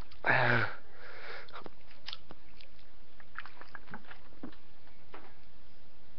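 A person chewing, with small wet mouth clicks scattered over a few seconds, after one short loud breath sound about half a second in.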